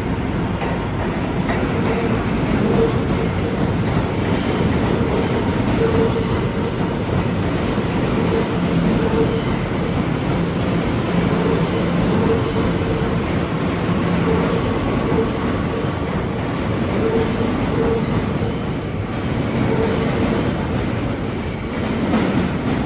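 New York City subway train running on the rails, a steady loud rumble with a low hum that comes and goes.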